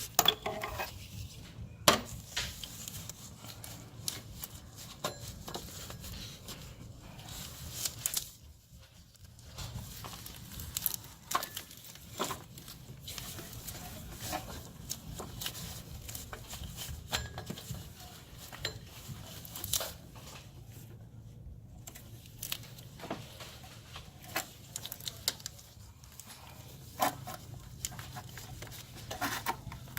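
Hands working a timing belt back onto the engine's pulleys: scattered light clicks, taps and rustling at an irregular pace, over a faint steady low hum.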